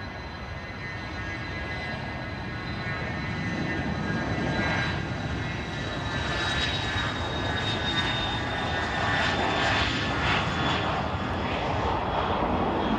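Cessna Citation's twin turbofan jet engines at takeoff power, a steady high whine over a rushing jet noise that grows steadily louder.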